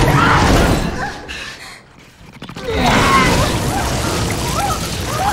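Horror-film sound effect of blood being projectile-vomited onto a woman's face: a loud gushing, splattering spray of liquid with strained, wavering shrieks over it. It follows a sudden loud lunge with a cry, and a short drop in level about two seconds in.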